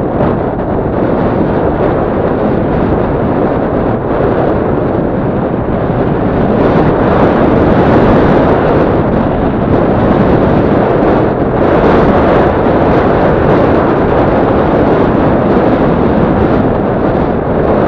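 Wind buffeting the microphone while riding a Yamaha Crypton-X underbone motorcycle, its engine running steadily underneath the rumble.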